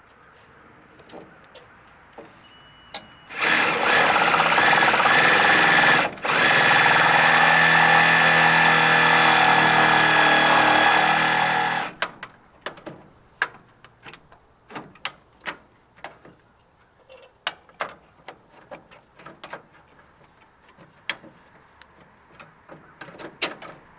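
Power drill running at a steady speed for about eight seconds, with a brief stop about two seconds into the run, then a scatter of light knocks and clicks.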